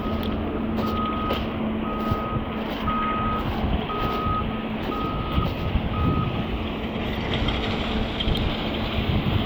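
Vehicle reversing alarm beeping: one steady high beep about once a second, seven beeps in all, stopping about six seconds in. A low steady hum and street noise lie beneath.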